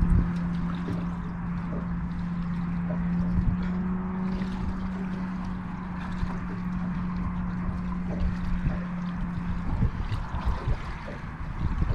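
Water moving around a boat at night, with wind buffeting the microphone in irregular low rumbles, under a steady low hum that fades out near the end.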